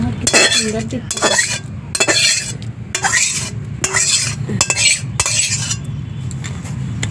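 Metal spoon scraping and scooping thick crab curry against steel cookware, about six strokes roughly a second apart that stop near the end, over a steady low hum.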